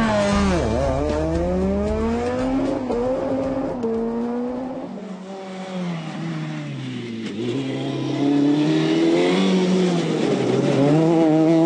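Peugeot 207 rally car's engine at full throttle, climbing in pitch and dropping sharply at each upshift. Around the middle it falls away as the car slows, then it pulls hard up through the gears again.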